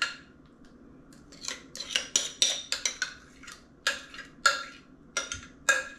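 A spoon scraping thick dip out of a glass measuring cup into a china bowl, clinking against the cup and bowl about a dozen times in quick, irregular taps.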